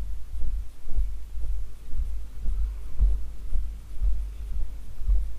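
Low thumping rumble on the camera's microphone as the person carrying it walks, about two thumps a second in step with the footfalls.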